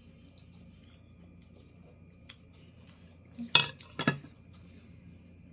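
A metal knife clinking sharply twice against a ceramic plate, about half a second apart, each with a brief ring.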